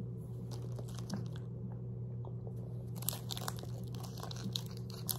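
Plastic candy wrapper crinkling as it is handled and opened, starting about three seconds in and going on in quick crackles. Before it there are a few faint chewing clicks.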